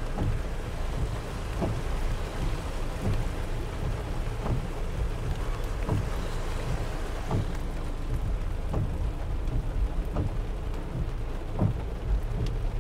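Heavy rain with a steady low rumble underneath, and a short regular stroke about every second and a half.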